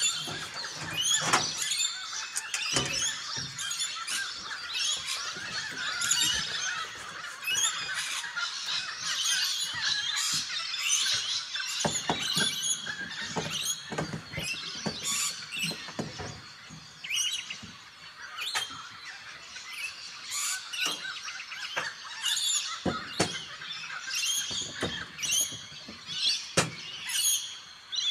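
Birds chirping and calling in a dense chorus, with scattered sharp clicks and knocks throughout.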